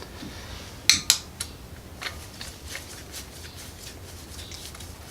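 Metal hand tools clinking on the bolts of an engine's clutch side cover as they are tightened evenly: two sharp clinks about a second in, then scattered fainter ticks.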